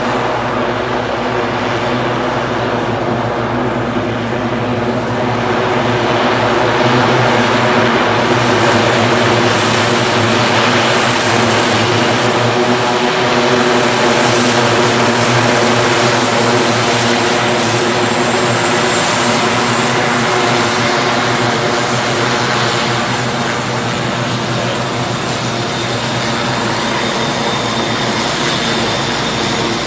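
Propeller aircraft engine droning steadily and loudly, swelling slightly through the middle.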